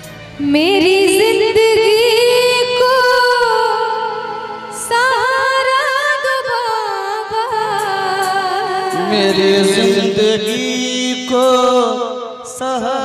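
A woman singing a Hindi devotional bhajan live into a microphone over musical accompaniment, her voice coming in about half a second in with long, sliding held notes.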